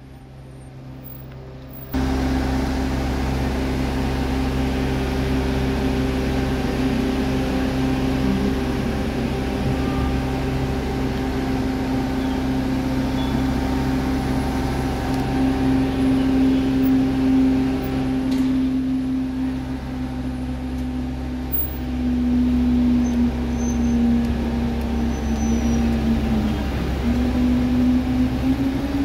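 Engine of heavy lifting machinery running steadily with a pitched hum, jumping louder about two seconds in; its pitch wavers, dipping and rising a few times in the second half as the machine works.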